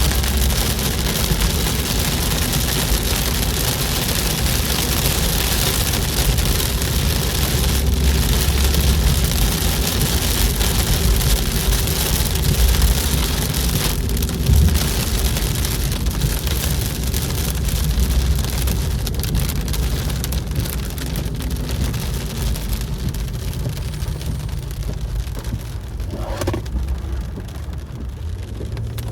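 Rain hitting a moving car's windshield and roof over steady road and engine noise inside the cabin; the rain hiss thins out near the end.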